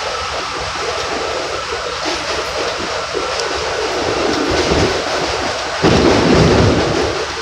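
Interior of an R32 subway car running on the rails: a steady rumble of wheels and car body, with a faint high whine that fades out after two or three seconds. About six seconds in the rumble suddenly turns much louder and deeper.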